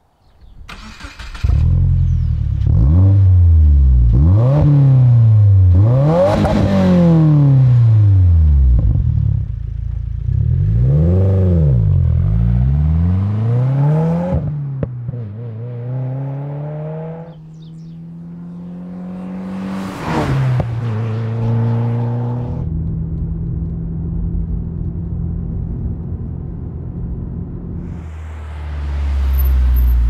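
2022+ Subaru WRX turbocharged 2.4-litre flat-four through a COBB stainless steel cat-back exhaust. The engine starts about a second and a half in and is revved several times, rising and falling. It then accelerates away in steps up through the gears, settles to a steadier lower note, and swells as the car passes close by near the end.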